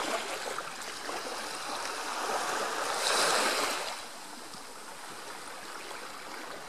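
Small sea waves lapping on a sandy shore, a steady wash that swells into one louder rush of a wave running up the sand about three seconds in, then settles back.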